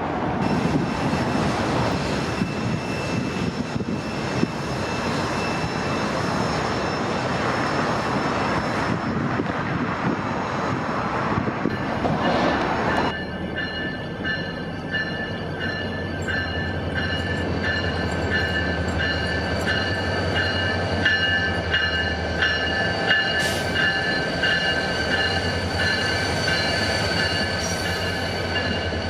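Freight cars rolling past on the rails with a broad rumble. About halfway through, the sound changes abruptly to BNSF diesel locomotives on a light-engine move: a low steady engine drone with a steady high-pitched whine or squeal above it.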